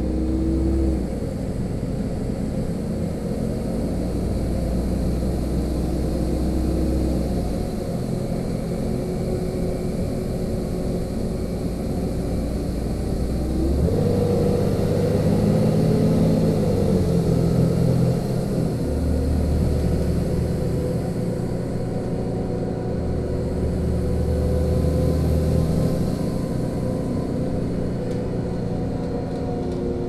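LiAZ-5292.65 city bus engine and road noise heard from inside the passenger cabin while the bus drives. The engine note steps up and down several times and rises about halfway through.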